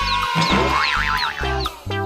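Bouncy children's background music with a plucked bass line, and a short wobbling cartoon sound effect about a second in.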